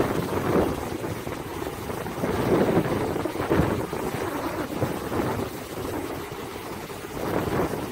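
Ocean surf breaking and washing in among boulders on a rocky shore, a steady rush that swells and eases with each wave, with wind buffeting the microphone.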